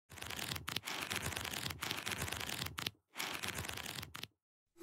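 Paper pages flipping rapidly, a dry papery rustle in two runs with a short break about three seconds in.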